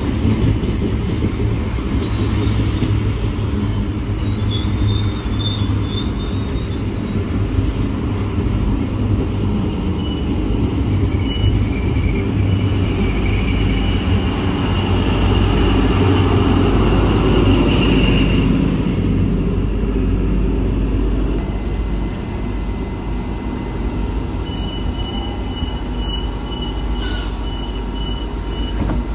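A long passenger train rolls past with a steady rumble of wheels on rail, and high wheel squeal rises over it in the middle. Then a steadier hum, with a thin high whine, comes from an electric train standing at the platform.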